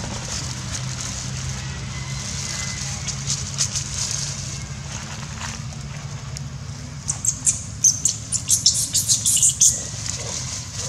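Dry leaf litter crackling and crunching in a quick run of sharp snaps for nearly three seconds, starting about seven seconds in, over a steady low rumble and a high hiss of outdoor background.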